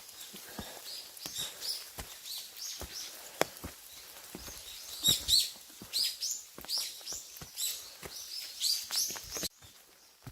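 Wild birds calling in a forest: a busy series of short, high chirps that slide downward, with scattered footsteps on a path. The sound cuts off suddenly near the end.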